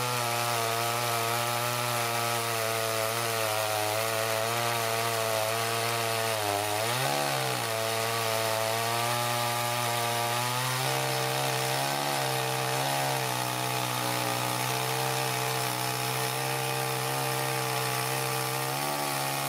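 Chainsaw running at high revs, cutting through wood. Its pitch dips briefly about seven seconds in, and a few more times later, as the chain bogs under load in the cut.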